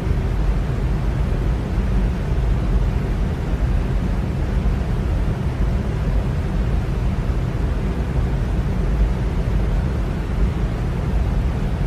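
Electric fan running steadily: a constant rush of air, deepest and strongest in the low range.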